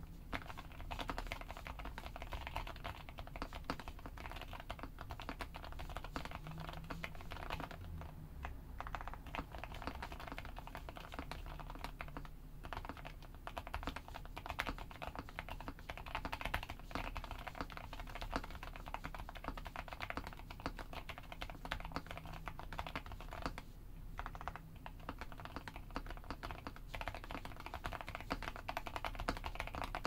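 Steady, fast typing on an Akko MOD007 mechanical keyboard fitted with Gateron Black Crystal Silent Red switches lubed with Krytox 205g2, an FR4 plate and GMK keycaps. The silent switches give a dense run of dampened keystrokes, thinning briefly a few times.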